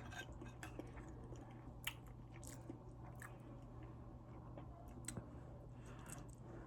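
A person chewing and biting food close to the microphone, with a few short, soft crunchy clicks scattered through.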